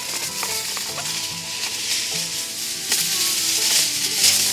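Aluminium foil being pulled off the roll from its box, a continuous crinkling rustle that grows a little louder with sharper crackles near the end. Soft background music plays underneath.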